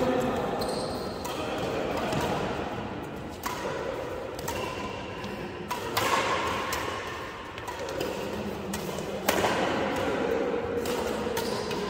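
Badminton rackets striking a shuttlecock during a rally: several sharp hits a second or more apart, ringing in a large hall over a murmur of voices.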